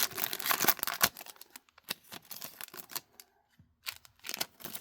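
Trading cards being flipped and slid through the hands one after another: a run of quick clicks and slides, dense for the first second or so, then scattered.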